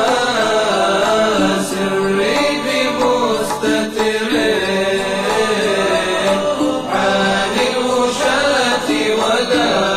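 Background vocal chant: a voice singing long melodic lines that waver up and down, with no beat.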